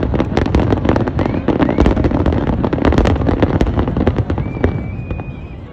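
Aerial fireworks shells bursting in quick succession, a thick run of bangs and crackle that thins out about four and a half seconds in.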